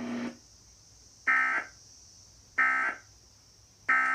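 Emergency Alert System end-of-message data bursts: three short, harsh digital screeches about a second apart, marking the end of the alert.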